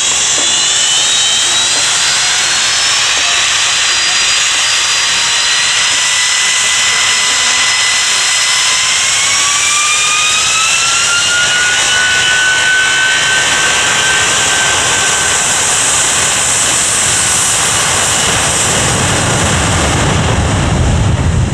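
Boeing 757 jet engines at high thrust on the takeoff roll: a loud steady roar with fan whines, two of which rise in pitch about nine to twelve seconds in.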